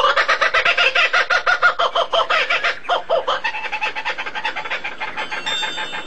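Fowl clucking: a fast, even run of short calls, about seven a second, that slows and fades after about three seconds.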